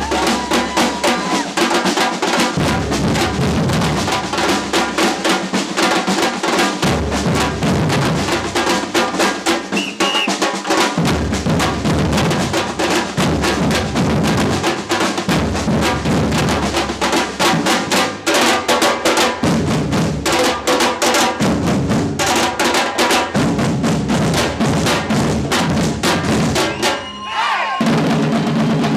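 A percussion band playing live: fast, dense drumming over a low bass part, with a short break about two seconds before the end.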